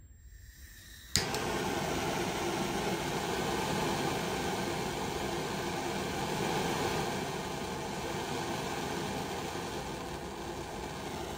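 Handheld butane torch lit with a sharp click of its igniter about a second in, then its flame hissing steadily.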